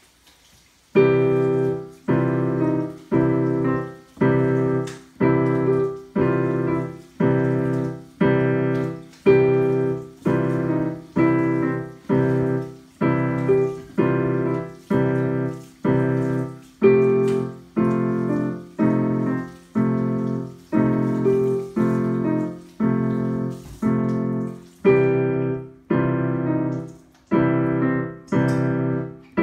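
A child playing a digital piano with both hands: a steady run of repeated chords, about one a second, each struck and fading before the next, starting about a second in with a brief hesitation near the end.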